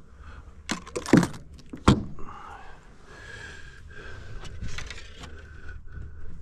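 Several sharp knocks and rattles of handled gear, the loudest a little after a second in and just before two seconds, followed by quieter rustling with a faint thin steady tone.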